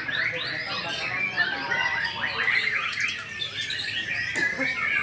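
Several white-rumped shamas (murai batu) singing at once, a dense tangle of fast overlapping whistles, chirps and trills with no pause.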